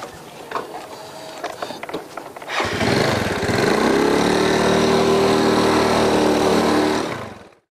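A few faint knocks and shuffles, then a small automatic scooter's engine comes in about two and a half seconds in. It rises in pitch as the scooter pulls away carrying two riders, runs steadily, and fades out near the end.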